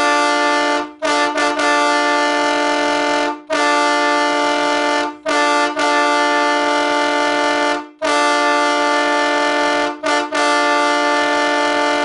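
Wolo Siberian Express three-trumpet air train horn sounding its multi-note chord in a series of blasts, some long and some short, separated by brief breaks.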